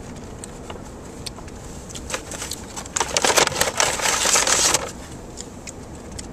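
Paper bag crinkling and rustling for about two seconds in the middle, with a few lighter crackles before it, over the steady road noise inside a moving car's cabin.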